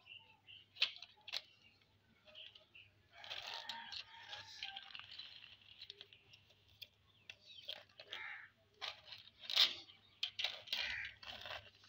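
Small plastic toy cars knocking together and against a concrete floor, giving sharp plastic clicks and clacks. A stretch of gritty scraping starts about three seconds in as a car is pushed along the concrete on its plastic wheels.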